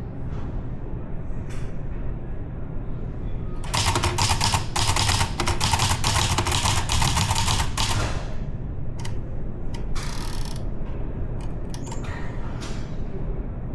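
Typewriter keys striking as a poem is typed: a few scattered strikes, then a fast, dense run of keystrokes from about four to eight seconds in, then slower, irregular strikes. A brief rush of noise comes about ten seconds in.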